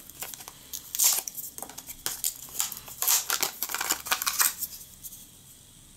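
Plastic blister pack crackling and its cardboard backing tearing as it is pulled open by hand, in bursts with a pause, going quiet near the end.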